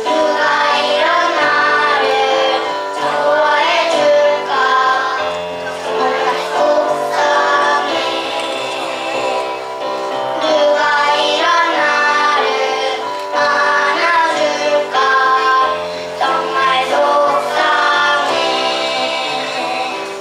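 A young boy singing a song into a microphone, with instrumental accompaniment and bass notes behind him.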